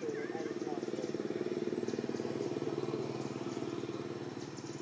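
A small engine running with a steady pulse, growing louder in the first second or two, then slowly fading.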